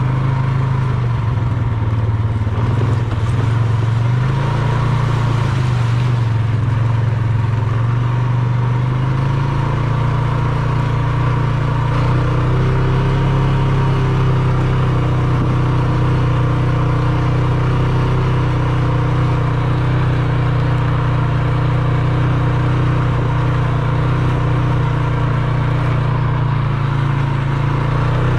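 Quad bike engine running steadily while being ridden, its pitch rising and falling a little in the first several seconds, then holding even.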